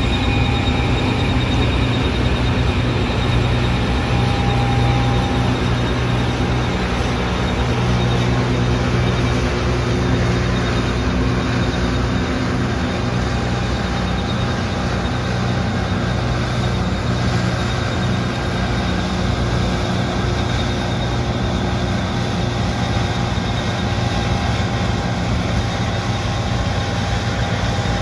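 New Holland CR11 combine harvester running steadily under load, a constant engine and machinery hum with no change in speed.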